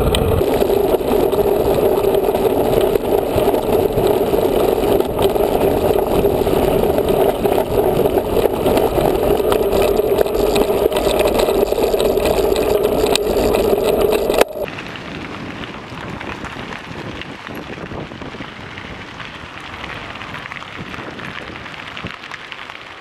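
Steady riding noise from a camera on a moving mountain bike: loud rushing from tyres and wind with a strong hum. About two-thirds of the way through it drops suddenly to a quieter, even rushing.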